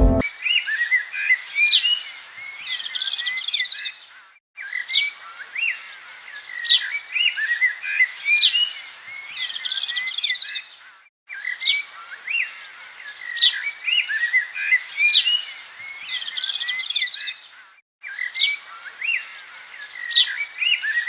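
Birds chirping and whistling in a busy mix of short calls. The same stretch of calls repeats about every six and a half seconds, split by brief moments of total silence.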